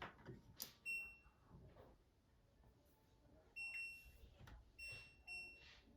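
Control panel of an LG DLE3400W electric dryer beeping as its buttons are pressed: four short electronic beeps, one about a second in and three close together in the second half, with soft button clicks between them.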